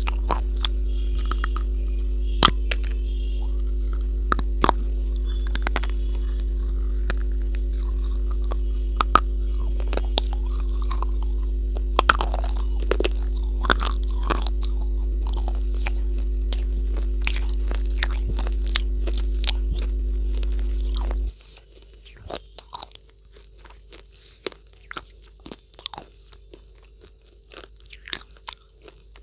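Close-miked biting and crunching of a hard, chalky white slab, with sharp crunches over chewing. A steady low electrical hum runs under it and cuts off suddenly about two-thirds of the way through, after which the crunches sound against a much quieter background.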